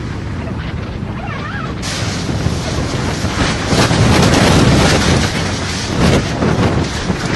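Strong tornado wind blasting the microphone: a rushing noise that swells sharply about two seconds in, is loudest around the middle, then comes in uneven gusts.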